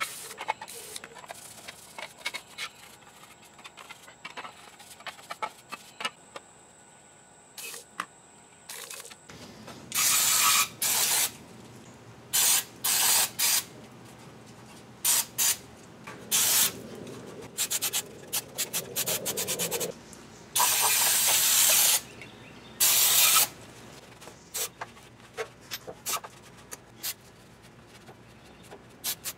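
Aerosol spray can hissing in a series of bursts, starting about a third of the way in. Most bursts are half a second to a second long and one runs about two seconds. Light clicks and knocks come before and after them.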